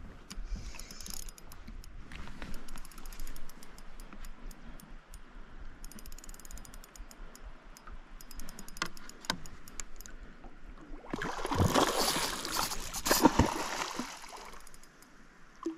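Spinning reel ticking on the retrieve. Then, about 11 seconds in, a hooked trout thrashes and splashes at the water's surface for about three seconds.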